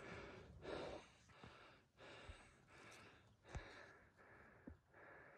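Faint breathing, with a soft breath about once a second and a few light clicks between.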